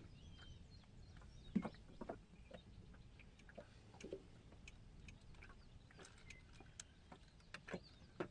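Near silence with scattered faint clicks and light knocks, the loudest pair about a second and a half to two seconds in.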